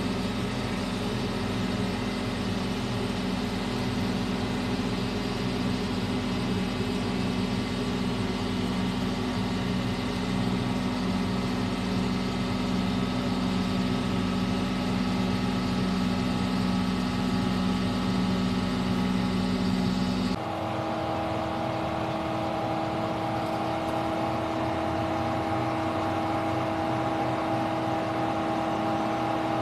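Mobile crane engine running steadily during a lift, a continuous hum. About two-thirds of the way through it switches abruptly to a different, higher-pitched steady hum.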